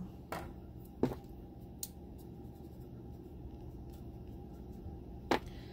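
Quiet room tone with a few soft clicks and taps from handling the doll head and a pastel brush, the sharpest click near the end.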